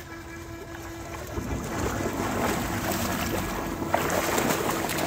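Water splashing loudly from about a second in, as a dog runs through the shallow river, over a steady whine.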